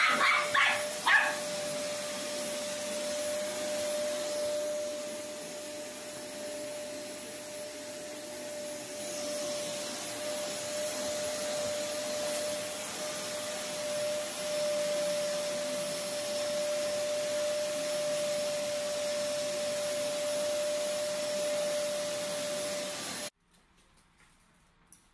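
Vacuum cleaner running steadily with a constant whine, cutting off suddenly near the end. A small Maltese dog yaps a few times in quick succession at the start.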